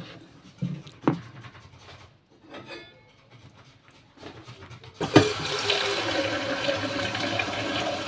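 A litre of cold water poured into a plastic tub of soapy laundry-soap mixture, a steady splashing pour that starts suddenly about five seconds in. Before it, faint stirring with a wooden spoon and a single knock.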